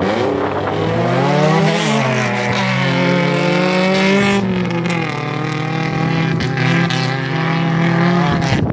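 Off-road vehicle engine revving hard under load, its pitch rising and falling repeatedly and then easing off at the end.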